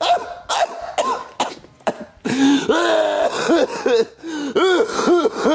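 A person's voice coughing and gagging in a run of wordless pitched cries, which come shorter and faster near the end.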